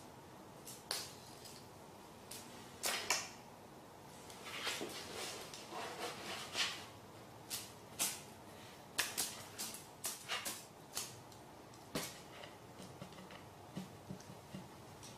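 Faint, irregular light clicks and taps, scattered throughout, with a stretch of soft rustling in the middle.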